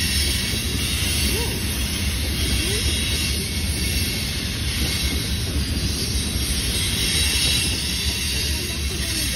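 Freight cars rolling past on steel wheels: a steady rumble and hiss, with a few faint brief wheel squeals.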